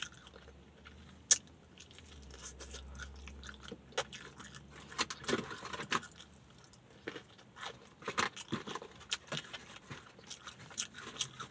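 Close-up chewing and crunching of crispy fried chicken: irregular bites, smacks and mouth clicks, busiest about five seconds in and again around eight seconds in.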